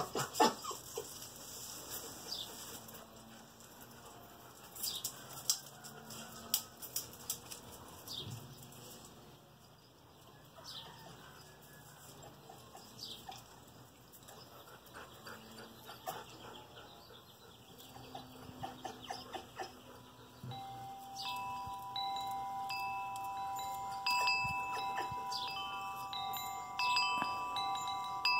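Chimes ringing: several long, clear tones of different pitches start one after another and overlap, from about two-thirds of the way in. Before that there are only faint scattered clicks and short chirps.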